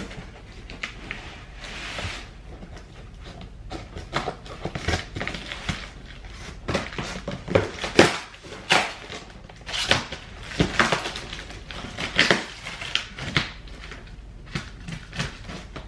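Scissors cutting through packing tape and cardboard, and the box's cardboard flaps being pulled open, in irregular scrapes, rips and knocks.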